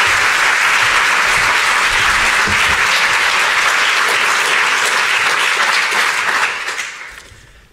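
Audience applauding, a steady round of clapping that fades away over the last second or so.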